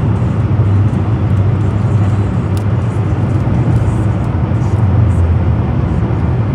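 Steady low rumble of a moving vehicle, like road noise heard inside a car.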